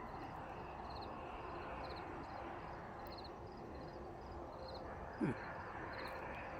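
Short high chirps, like an insect's, repeating about twice a second over a steady outdoor background hum. About five seconds in there is one brief, louder sliding low sound.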